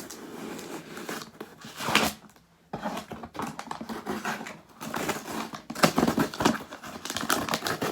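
A shipping package being cut and torn open, its packaging crinkling and rustling. A loud tear comes about two seconds in, then a brief pause, then a dense run of crackling and rustling.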